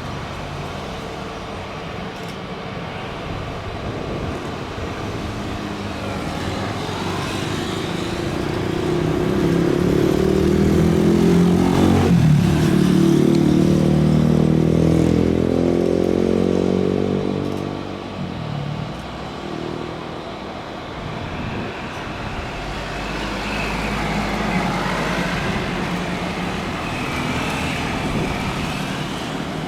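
A vehicle passing close by: its engine noise swells over several seconds, peaks about twelve seconds in with a drop in pitch as it passes, then fades.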